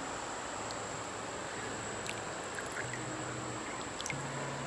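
Shallow creek water running steadily, with an insect buzzing on and off over it.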